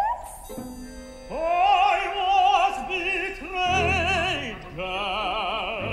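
Mezzo-soprano opera singer singing a slow, high phrase with wide vibrato, accompanied by instruments, with a high held tone entering about five seconds in.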